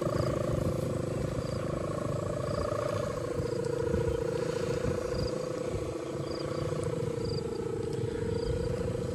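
Kite hummer (sendaren) droning overhead: one wavering tone with overtones that drops a little in pitch about three seconds in. Low wind rumble on the microphone underneath.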